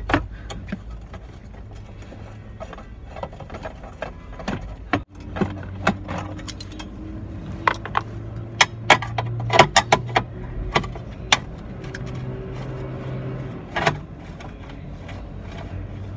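Metal hand tools clinking and clicking against the evaporator housing's fittings and bracket, a scattered string of sharp clicks that comes thickest in the middle, over a steady low hum.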